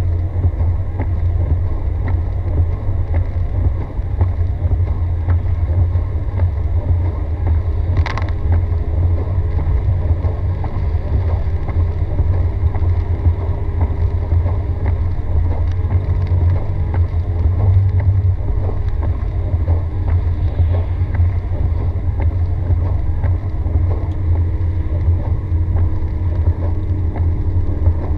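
Steady low rumble of a car driving on a wet road in rain, heard from inside the cabin, with a faint engine tone drifting in pitch. A single sharp click about eight seconds in.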